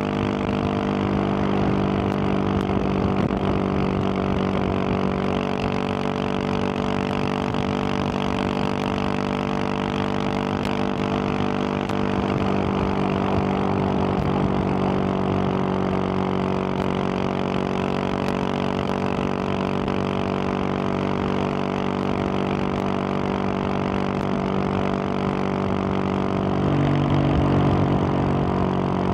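2021 Husqvarna 701 supermoto's single-cylinder engine running at a steady highway cruise through its Wings aftermarket exhaust, with wind rush. Near the end the engine note changes pitch and gets a little louder for a couple of seconds.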